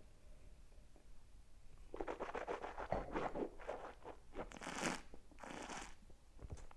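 A taster swishing a mouthful of red wine around the teeth and lips with small wet slurping sounds, starting about two seconds in, then sucking air through the wine in two short hissing pulls near the end.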